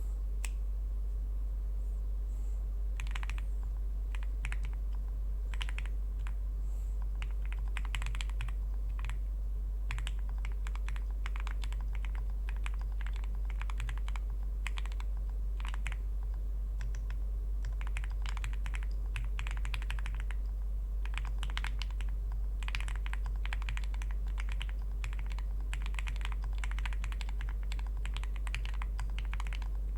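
Typing on an Owlab Spring ergonomic Alice-layout mechanical keyboard with factory-lubed Gateron Oil King linear switches in an aluminium plate and GMK keycaps. It is a fast, dense run of keystroke clacks that starts about three seconds in, over a steady low hum.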